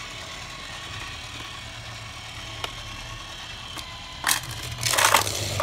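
Motorized toy train engine on a plastic turntable playset: a steady small-motor and gear whir with a few single clicks. About four and five seconds in come louder plastic clacks and rattles.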